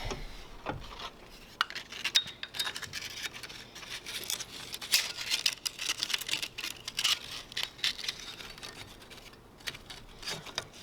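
Handling noises from work on a belt sander with its side cover off: irregular clicks, scrapes and light knocks of parts and a sanding belt being fitted by hand, with the motor not running.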